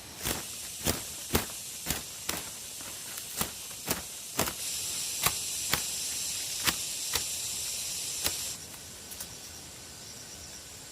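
A series of sharp knocks, about two a second, over a high hiss that stops suddenly near the end, with insects chirping steadily underneath.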